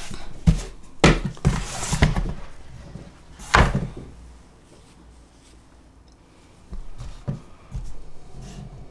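Computer keyboard keys and mouse buttons being pressed, heard as a handful of separate sharp knocks and thuds. The loudest comes about three and a half seconds in, there is a lull in the middle, and a few lighter knocks come near the end.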